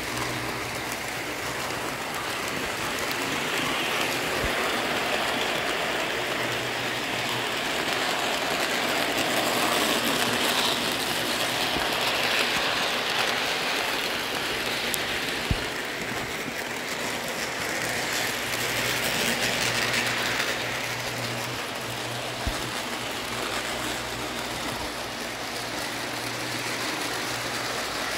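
O gauge model passenger train running on Lionel track: a steady whir of motors and wheels with a low hum underneath, swelling and easing gently as the cars pass close. Two sharp clicks about halfway through and again a few seconds later.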